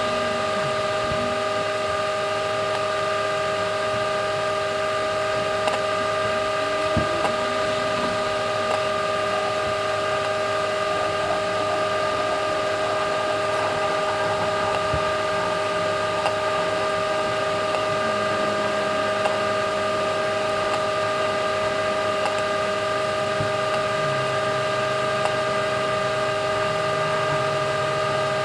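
Microwave oven running, with a steady electrical hum from its transformer and magnetron. It is heating a sealed tin of ravioli.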